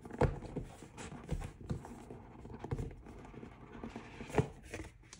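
A tight-fitting box lid being worked loose and pulled off by hand: rubbing and scraping with several light knocks and taps, the sharpest about four and a half seconds in.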